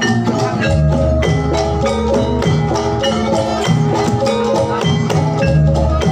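Javanese gamelan music for a jathilan dance, played loud through a sound system: metallophones strike a fast, evenly repeating melody over a heavy bass, with deep low strokes about a second in and again near the end.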